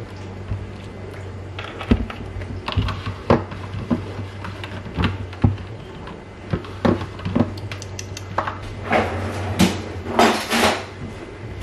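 Ice cubes clinking and knocking in a plastic cup as an iced coffee is stirred with a straw, a run of sharp irregular clicks. Near the end come a few longer rattling scrapes as a freezer drawer is opened and its contents are moved about.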